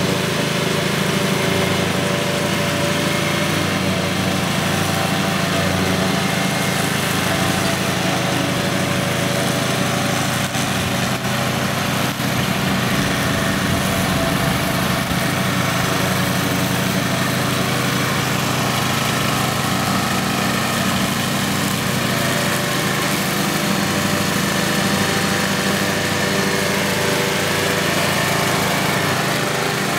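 Front-deck ride-on lawn mower running steadily while mowing grass, its engine holding one even note.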